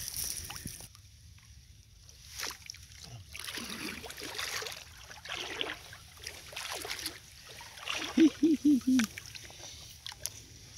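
Legs wading through shallow seawater, each step a separate swish and slosh. About eight seconds in, four quick pitched pulses sound, louder than the water.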